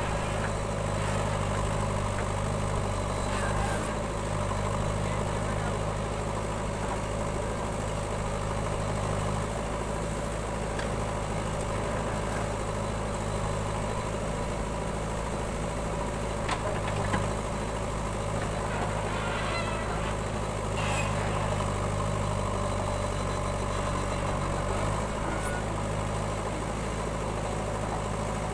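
Diesel engines of a JCB backhoe loader at work and a tractor beside it, running steadily, with slight changes in the engine note as the backhoe digs and swings. A couple of sharp knocks about halfway through.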